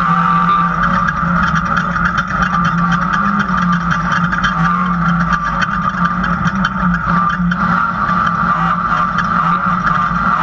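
Off-road race car's engine running hard, heard from inside the cockpit, its pitch wavering slightly with a steady high whine over it, and constant fine rattling and clatter from the car bouncing over a rough dirt road.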